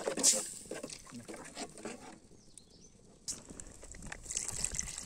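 A steel ladle stirring thick fish curry in an aluminium pot, with wet sloshing and light clicks and scrapes against the pot. The sound drops out briefly about two seconds in, then the stirring and bubbling noise picks up again.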